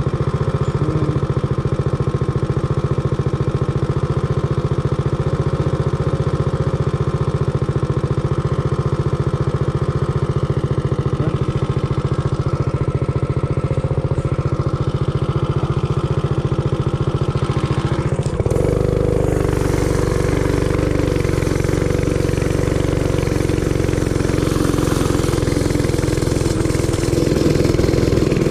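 Realtree RT200 minibike's 196cc single-cylinder four-stroke engine, with a custom exhaust, idling steadily. About two-thirds of the way through the sound changes abruptly and becomes fuller, and near the end it revs up as the bike pulls away.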